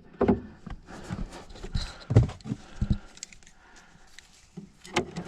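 A few irregular knocks and thumps, then a quieter stretch and sharp clicks near the end: someone moving about and handling things in the car.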